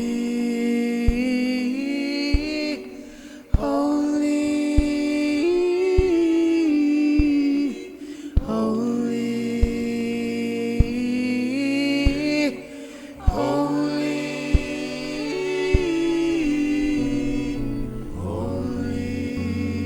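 Slow worship music: a voice sings long held notes in phrases of a few seconds, with a soft click about every 1.2 seconds keeping the beat. A low bass note joins near the end.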